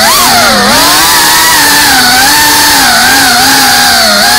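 FPV quadcopter's brushless motors and propellers whining, the pitch rising and falling with the throttle, with a quick rise and then a dip about half a second in.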